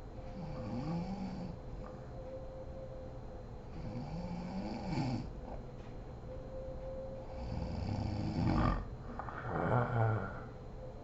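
Woman snoring in her sleep: four snores a few seconds apart, the last two louder.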